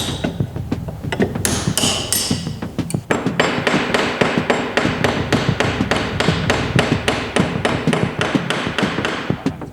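Hammer blows on the wooden parts of a danjiri festival float being knocked apart. A few scattered strikes come first, then from about three seconds in a fast, even run of about four blows a second.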